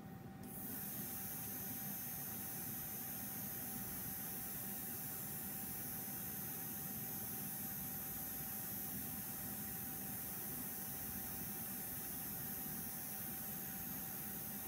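Small Arduino-powered fan switching on about half a second in, then running with a steady rushing noise; it starts because the EEG focus algorithm has registered focus.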